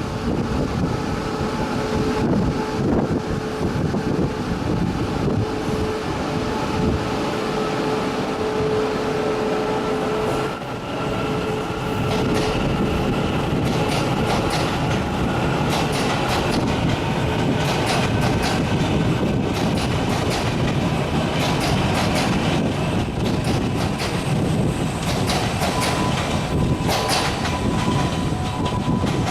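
Taiwan Railways train running past on the track, a continuous rumble with a steady whine and a rapid rattle of wheel clicks in the second half.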